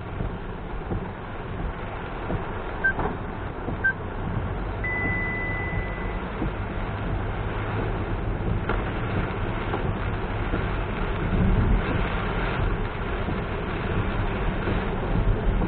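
A car driving in heavy rain: a steady low rumble of engine and tyres under the hiss of rain. Two short high beeps come about three seconds in, then a longer steady beep lasting about a second and a half.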